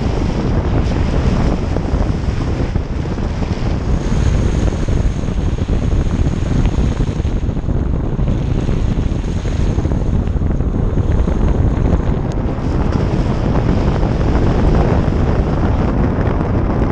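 Wind rushing over a camera microphone mounted on the outside of a moving Ford Focus RS, with the hiss of tyres on a wet road underneath; steady throughout.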